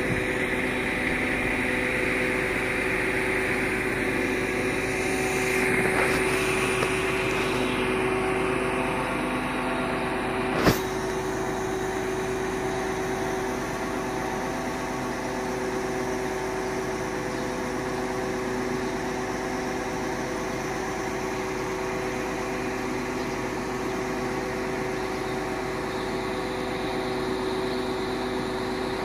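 Truck engine running steadily to drive the hydraulics of a truck-mounted Atlas loader crane lifting a pallet of concrete blocks, a steady drone with a held whine. There is one sharp knock about ten seconds in.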